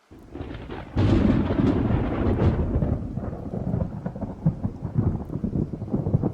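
A thunderclap: rumble building from silence, a sharp crack about a second in, then a long crackling rumble that eases off after a few seconds.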